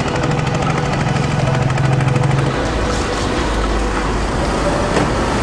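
A steady engine hum with a constant hiss behind it; about two and a half seconds in, the hum drops to a lower drone.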